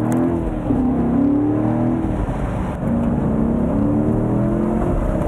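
2014 Corvette Stingray's 6.2-litre V8 pulling hard, its engine note climbing, dropping back and climbing again several times as it accelerates through the gears.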